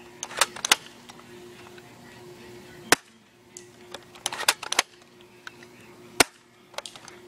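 Spring-powered bolt-action airsoft Famas rifle being fired twice, each shot a single sharp snap, about three seconds apart. Between and around the shots come short clusters of rattling clicks as the bolt is worked to cock the spring.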